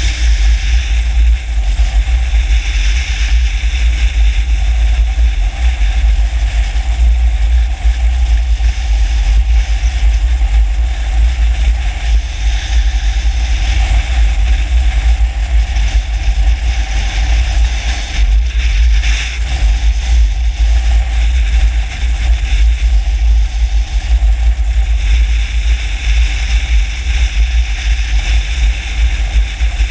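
On-board sound of a Kawasaki Versys X-300 motorcycle riding along steadily: its parallel-twin engine runs under heavy wind buffeting on the camera microphone.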